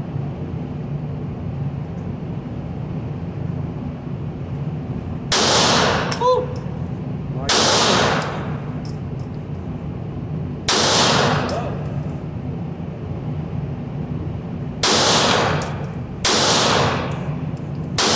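Six single shots from a Glock 19X 9mm pistol, fired one at a time and spaced one to four seconds apart, each with a short echoing tail. A brief metallic ring follows the first shot.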